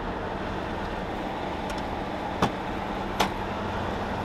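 Cabin sound of a 1999 Land Rover Discovery 2's Td5 five-cylinder turbodiesel driving at about 60 km/h and 2000 rpm: steady engine and road noise. Two sharp clicks come about two and a half and three seconds in.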